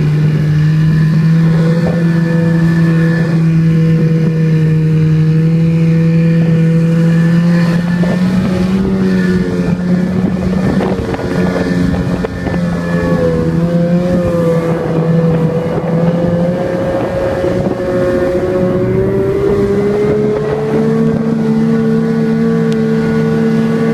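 Snowmobile engine running steadily under way, its pitch shifting a few times as the throttle changes, with a brief dip about halfway through.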